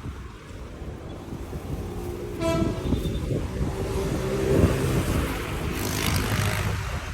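Road traffic passing, with a vehicle horn giving one short toot about two and a half seconds in; a vehicle grows louder and passes a few seconds later.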